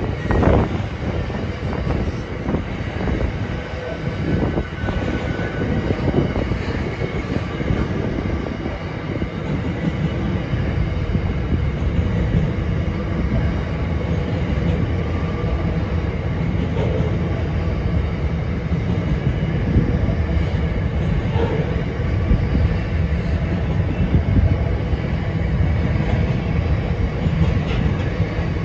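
Container wagons of a long intermodal freight train rolling steadily past: a continuous rumble of steel wheels on the rails.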